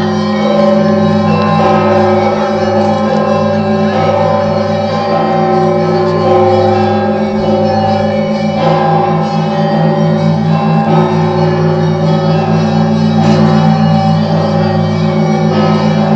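Large 7,150 kg cathedral bell ringing, struck about every two seconds, its deep hum and many overtones sounding on without a break and pulsing as they beat.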